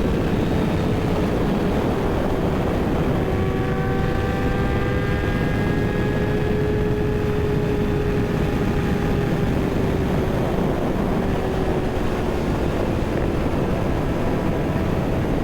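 Kawasaki ZX-6R's inline-four engine running steadily under way, its pitch drifting slowly lower, over a constant rush of wind noise.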